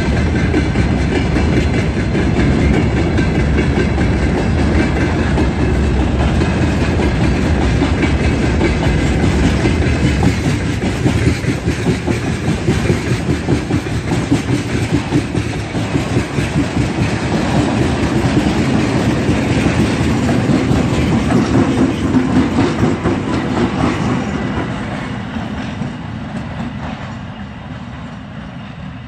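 Freight train wagons rolling past with a steady clickety-clack of wheels over the rail joints, as the train climbs an 18‰ grade. Near the end the ChME3 diesel shunting locomotive at the tail of the train comes by with its engine running, and the sound then fades away.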